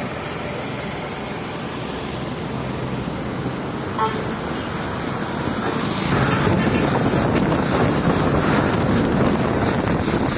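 Road traffic on a wet road, a steady hiss of passing vehicles, turning louder about six seconds in as a motorcycle passes close by.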